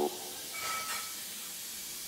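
Steady hiss with no distinct events, and a faint thin tone for a moment about half a second in.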